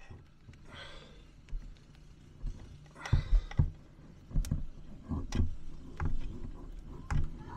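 Hands handling plumbing hoses and fittings: a braided stainless water supply hose and plastic connectors being moved and fitted by hand, giving scattered light clicks and knocks with soft rustling about a second in and again around three seconds.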